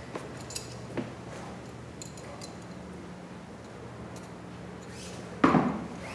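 A low steady hum with a few light clicks, then one sharp knock near the end that rings on briefly.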